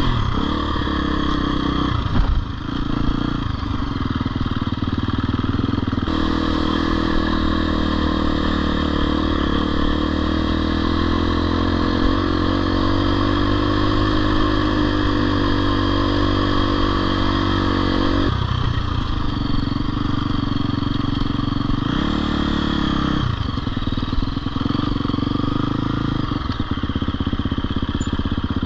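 Husqvarna FE 250 dirt bike's four-stroke single-cylinder engine running steadily while riding a trail. Its engine note changes several times, about 2, 6, 18 and 23 seconds in.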